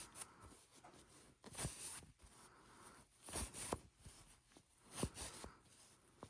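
Fabric rustling and scrunching in short swishes, a few every couple of seconds, as elastic on a safety pin is worked through a bias tape casing.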